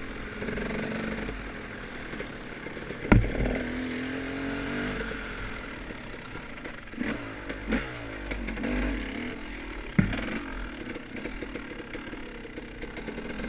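Off-road dirt bike engine revving up and easing off again and again while riding, with two sharp knocks, about three seconds in and about ten seconds in.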